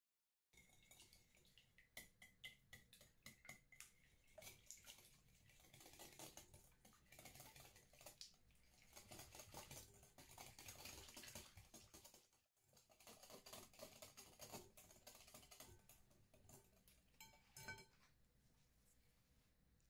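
Stainless wire whisk beating eggs in a glass bowl: fast, faint ticking of the wires against the glass and slosh of the liquid, with a brief break about twelve seconds in, stopping shortly before the end.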